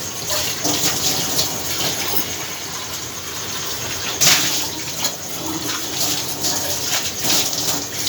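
Green peas frying in oil and tomato masala in a pressure cooker: a steady sizzle, with louder surges about four seconds in and again near the end.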